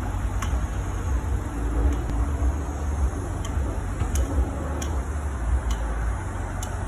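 Steady low rumble of engines outdoors: road traffic and a jet airliner flying low overhead. A few faint sharp ticks sound through it.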